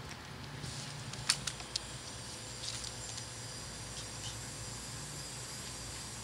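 Light clicks and scratches, thickest in the first two seconds, from a puppy's claws scrabbling on a plastic laundry basket, over a steady low hum.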